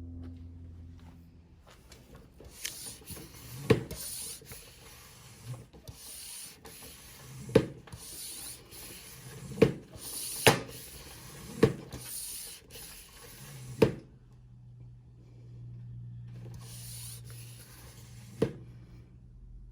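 Rubbing and handling noises, with about seven sharp knocks or clicks at irregular intervals.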